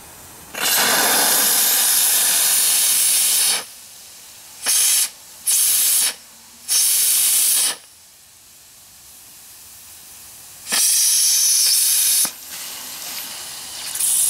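Live steam hissing from a small upright boiler's steam injector as it is being started, coming in about six loud on-and-off blasts, the first about three seconds long and the others shorter, with a lower hiss between them. It is the injector's steam blowing out before it takes hold and feeds water into the boiler.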